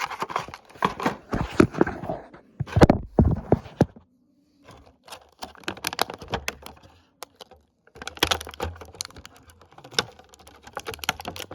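Hands handling earbud packaging and the plastic charging case: a run of small plastic clicks, taps and rustles, broken by a short pause about four seconds in.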